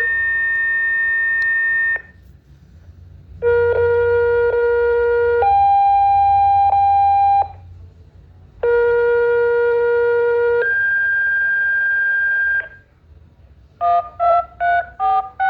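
Siren-activation encoder sending its alert signal. It plays three pairs of steady electronic tones, each pair a low tone of about two seconds followed by a higher one, with short pauses between the pairs. Near the end comes a quick run of about five short beeps at changing pitches.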